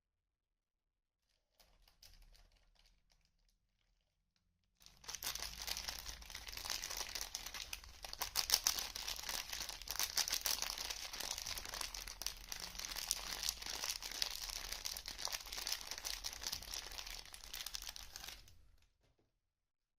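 Soap packaging being unwrapped by hand: a few faint crinkles, then about thirteen seconds of continuous close-up crinkling and tearing of the wrapper, which stops abruptly.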